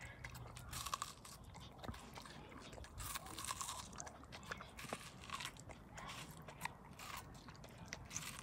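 Wire fox terrier biting and chewing watermelon flesh from a hand-held slice: irregular crunching bites, several a second.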